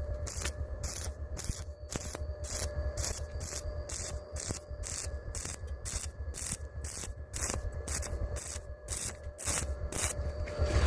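Rhythmic back-and-forth scraping strokes on a welded steel joint, about three a second, like a wire brush or file working the weld, over a steady hum.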